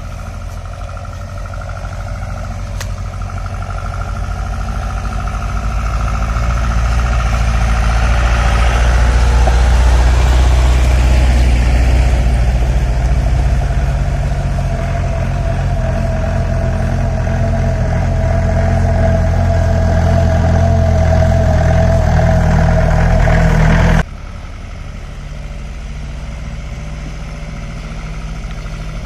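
4x4 jeep engine running under load while driving an offroad track, building louder over the first several seconds and holding high, with a steady whine over it for a stretch. About 24 seconds in it drops suddenly to a quieter, steadier running.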